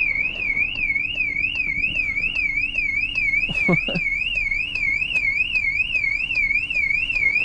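Bentley Continental's car alarm sounding: a loud, high siren tone sweeping up and down about three times a second. The driver puts it down to hitting the button by mistake.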